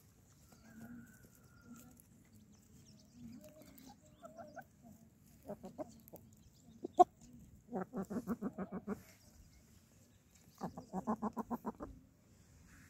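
Aseel chickens clucking: a few scattered single clucks, then two runs of rapid clucks, about nine a second and each lasting a little over a second, near the middle and toward the end. A single sharp click comes about seven seconds in.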